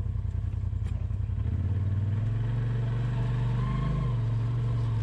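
Polaris RZR Pro XP side-by-side's 925 cc twin-cylinder engine running steadily at trail speed, its note shifting about a second and a half in and rising briefly then easing off near the four-second mark.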